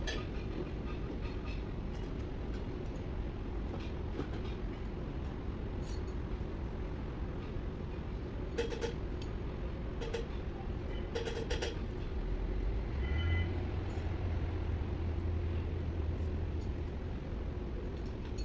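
Steady low machinery rumble with a few short, light metallic clinks from hand tools on the engine. A deeper drone comes in about two-thirds through and holds.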